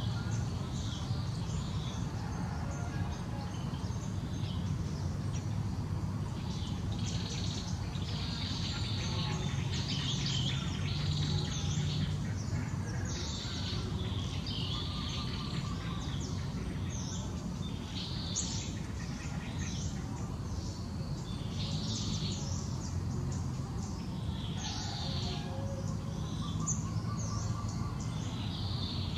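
Birds chirping in short, repeated high-pitched phrases, over a low steady hum.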